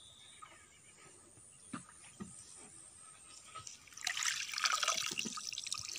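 Water trickling and dripping around a wooden dugout canoe on a river. A few faint drips come first, then a denser splashing trickle from about four seconds in.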